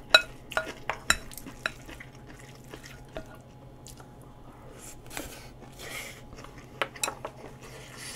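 Spoon clinking and scraping against a bowl of rice and stew as it is mixed and scooped: a quick run of sharp clinks in the first two seconds, softer scraping, then two more clinks about seven seconds in.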